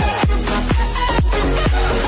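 Electronic dance music with a steady kick drum thumping about twice a second over heavy bass.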